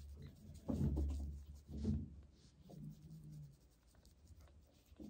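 Soft rubbing and scratching of a tissue wiping a newborn kitten's bottom to stimulate it to pee, with two louder dull handling bumps about one and two seconds in.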